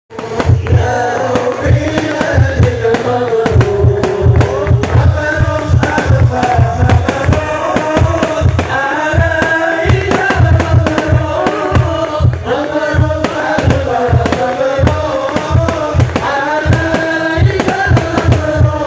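Live sholawat, an Islamic devotional song, sung through stage loudspeakers over a fast, steady beat of hand drums.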